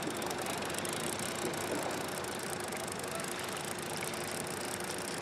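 Evinrude outboard motor running steadily at trolling speed.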